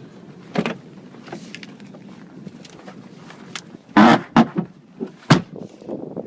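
Lada Kalina car door worked in hard frost (about −20 °C), creaking and clunking: a light knock about half a second in, then a loud burst of creaks and knocks about four seconds in and a sharp bang just over a second later. The creaking is the doors' stiffness in the cold.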